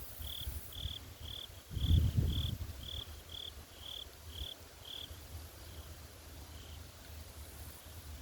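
An insect chirping in a steady rhythm, about two short high chirps a second, fading and thinning out after about five seconds. A brief low rumble comes about two seconds in.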